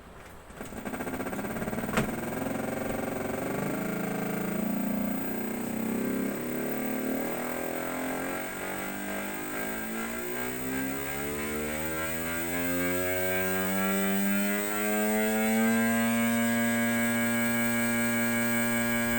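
E-bike sound-effect speaker playing a simulated big-bike motorcycle engine, its pitch climbing slowly as if revving up, then holding steady near the end. A single click about two seconds in.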